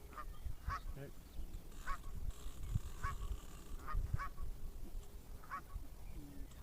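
Geese honking repeatedly, about a dozen short calls at irregular intervals of half a second to a second, over a low rumble.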